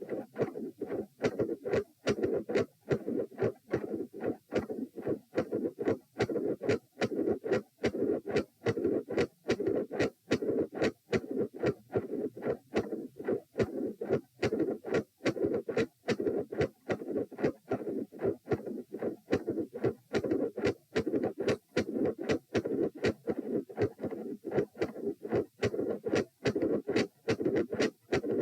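Human heartbeat recorded at the chest: a regular run of short heart sounds with a murmur filling the gaps between them, taken as a midsystolic murmur.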